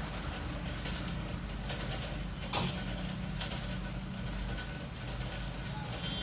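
Pliers working steel stay wire as it is bent into a loop: a few light metallic clicks, one sharper click about two and a half seconds in, over a steady low background hum.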